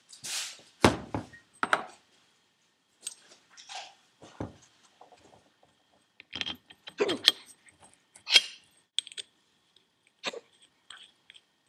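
Scattered metal clinks and knocks from Holset HX40 turbocharger parts being handled on a workbench, with rag rustling as the compressor wheel is wiped.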